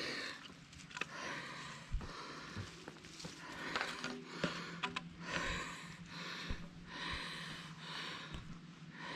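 A hiker breathing hard and audibly, with heavy breaths about once a second, and scattered sharp clicks from walking.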